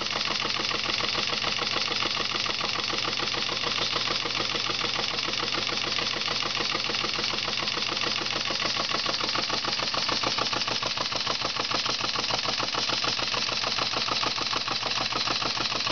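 Small model steam engine running steadily on wet steam: a rapid, even chuffing of exhaust strokes over a constant steam hiss.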